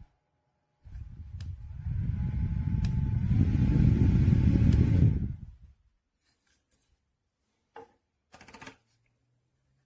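Small battery-powered clip-on fan (Gaiatop) blowing air onto the microphone as a rumbling rush. Its motor tone and the airflow step up twice, as if switched through faster speeds, then stop suddenly. Two brief rustles or knocks follow near the end.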